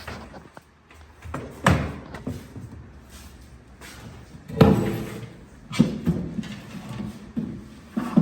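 A handful of irregular knocks and thuds, the loudest about halfway through: wooden kitchen wall cabinets being handled and knocked into place on wall brackets.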